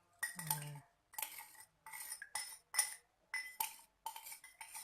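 A spoon clinking and scraping in a strainer over a glass as the pounded herbal mixture is pressed through to strain out the liquid. It comes as about two quick strikes a second, each with a short ring. A brief low vocal sound comes near the start.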